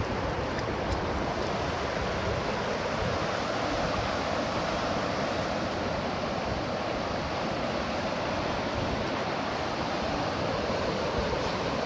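Steady rush of water washing along a rocky shore, an even hiss that holds at one level, with a few faint ticks in the first second.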